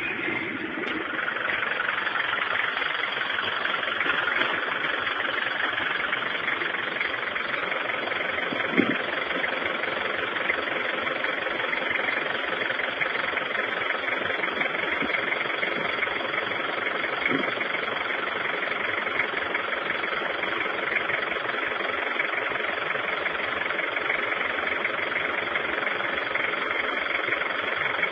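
Nissan Sani 4x4's engine running steadily as it drives slowly off-road, heard from inside the cab.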